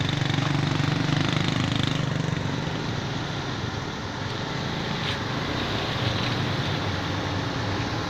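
Excavator's diesel engine running steadily, louder for about the first two seconds and then easing to a lower level.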